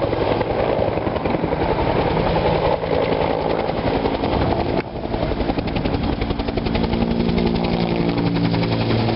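Helicopter rotors chopping rapidly over a steady engine drone, with a brief drop in the sound about five seconds in.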